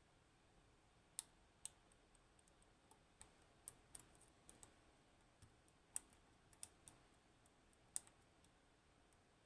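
Faint, irregular metallic clicks of a lock pick and tension tool working the pin stack of an Assa 600 cylinder lock, a dozen or so sharp ticks spread unevenly, the loudest about a second in and near six and eight seconds.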